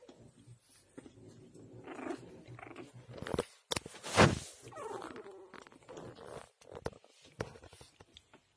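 Newborn puppies squirming together, giving small grunts, squeaks and whimpers, with one louder, sharp squeal about four seconds in.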